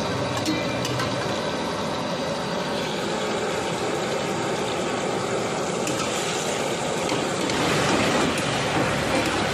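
Chicken and lamb fat frying in a steel karahi over a gas burner: a steady sizzle over the burner's rush, turning louder and brighter about seven and a half seconds in as the oil bubbles hard.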